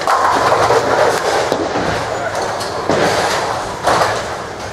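Spectators cheering and clapping in a bowling alley, breaking out suddenly and swelling again about three seconds in, over the general rumble and clatter of the lanes.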